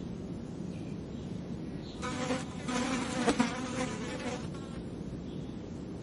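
A fly buzzing close by in one pass of about two and a half seconds, starting about two seconds in, swelling and fading as it flies around, over a low steady background rumble.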